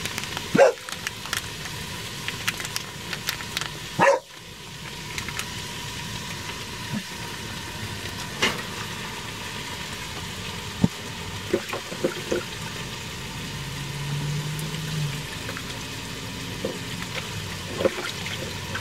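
A dog barks twice, sharply, about half a second and four seconds in. Underneath is a steady sizzle of chopped onion and bell pepper frying in olive oil in the pot, with small clicks and rustles of handling.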